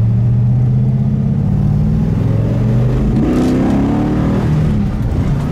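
The 426 Hemi V8 of a 1967 Dodge Coronet R/T pulls up a hill under acceleration, heard from inside the cabin. It runs as a steady engine drone at first. About three seconds in, the pitch rises as the throttle opens further, enough to kick in the front carburetor.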